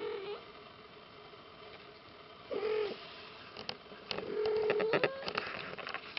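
Three-week-old British Shorthair kittens mewing: a short mew at the start, another about two and a half seconds in, and a longer, steady mew of about a second starting around four seconds in. Scattered sharp clicks and taps in the second half.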